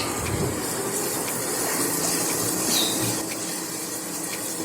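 Ginger-garlic paste and fried onions sizzling steadily in hot oil.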